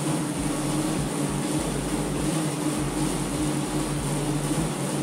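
Steady whirring hum of a mountain bike's tyres spinning on DIY cycling rollers as the rider pedals, with a faint uneven pulsing underneath.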